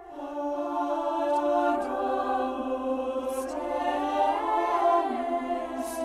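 Choir singing unaccompanied in a free, chant-like style, holding long notes in several parts that move slowly from pitch to pitch.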